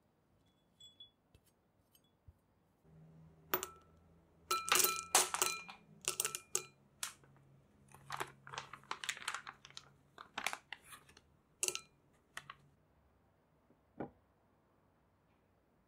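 Chocolate discs dropped into a small glass bowl, clattering and clinking against the glass in a quick run of sharp hits, some with a ringing glass tone, over a low steady hum. Near the end comes one more light click.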